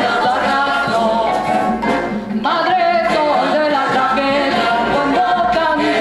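A woman singing with live accompaniment, including a marimba. Her voice slides upward about halfway through.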